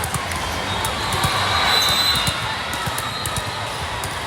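Indoor volleyball match noise: crowd chatter with scattered sharp hits of the ball.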